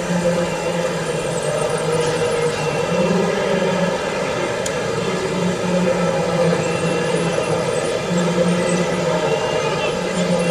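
Radio-controlled model construction machines running, a steady mechanical whine of their motors with several held tones.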